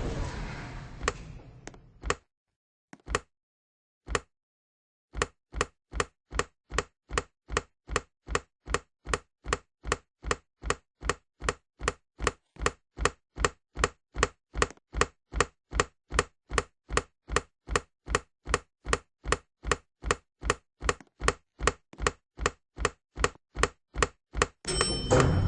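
Steady clock-like ticking, about two sharp ticks a second against complete silence, after two lone ticks; typical of a countdown timer.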